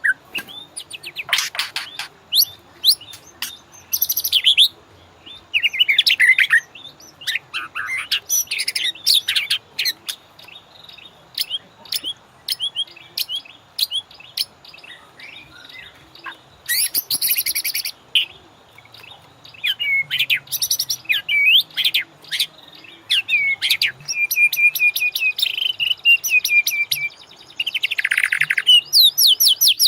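White-rumped shama (murai batu) singing a long, varied song of whistles, swooping glides and fast buzzy rattles, delivered in quick phrases with short pauses. Near the end it holds a steady whistle, then breaks into rapid rattling trills.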